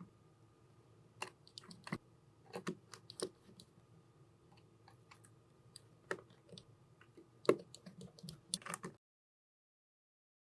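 Scattered small clicks and taps of hand tools and small camera parts being handled during a camera repair, a few louder ones about two, three and seven seconds in. The sound cuts to dead silence about nine seconds in.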